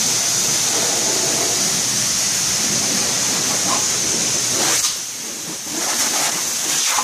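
Dog-grooming blow dryer blowing a steady rush of air, with a thin high whistle in the hiss. It drops in loudness for about a second around five seconds in, then comes back up.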